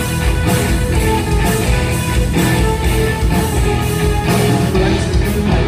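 Live rock band playing an instrumental passage: distorted electric guitar over bass and drums, with cymbal strokes at a steady beat.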